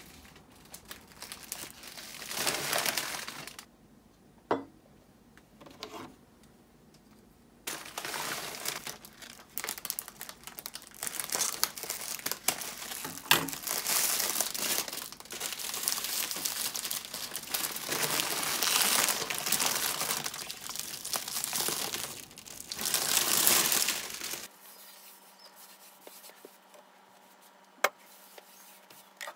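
Crinkling and rustling in irregular bursts, like packaging being crumpled and handled. It stops about five seconds before the end, leaving a faint steady hum and a couple of sharp ticks.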